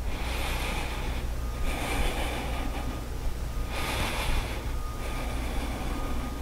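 Slow, audible breathing: about three breaths, each a soft swell of air noise lasting under a second, over a steady low hum.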